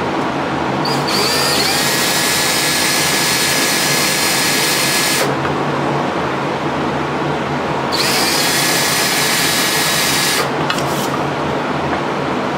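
Handheld power tool cutting aluminium in two runs, one about four seconds long and one about two and a half, rising in pitch as it spins up at the start of each. A steady hum continues underneath.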